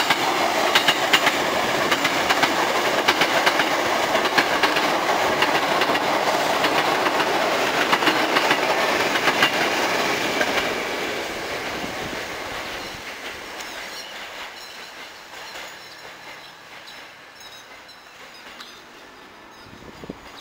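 Hankyu 5300 series eight-car electric train passing close by, its wheels clicking rapidly over the rail joints. About ten seconds in the sound starts to fade as the train draws away towards the station to stop.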